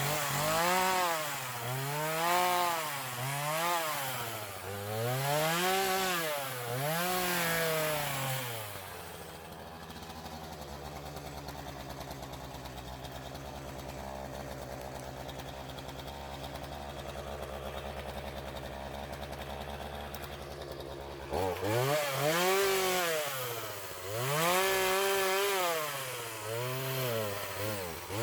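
A small two-stroke engine on a handheld power tool revving up and dropping back again and again, about every one and a half to two seconds. About nine seconds in it settles to a steady idle for roughly twelve seconds, then goes back to revving up and down.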